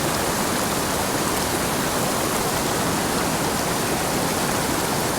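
Mountain creek water rushing over rocks and around a downed log, a steady, even rush with no breaks.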